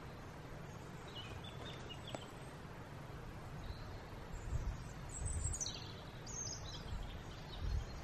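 Small woodland songbirds calling: a few short high chirps about a second in, then a busier run of high, quick calls in the second half. Under them is a low rumble that swells now and then.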